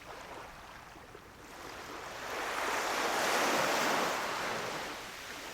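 Ocean waves washing onto a beach: one wave swells up about two seconds in, breaks and washes over the sand, then recedes.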